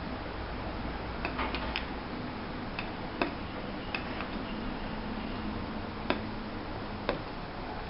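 Painted wooden puzzle pieces clicking and tapping against each other as they are fitted together, at uneven intervals, over a steady background hiss.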